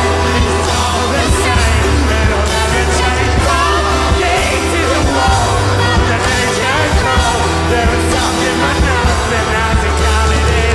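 Live rock band playing a song, electric guitar under a strong steady bass, with a man and a woman singing together.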